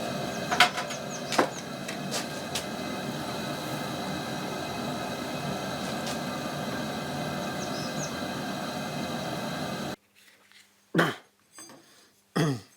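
Grinder running as the bevels are ground into a steel knife blade: a steady grinding noise with a faint high whine and a few sharp clicks, which cuts off suddenly about ten seconds in, followed by two brief knocks.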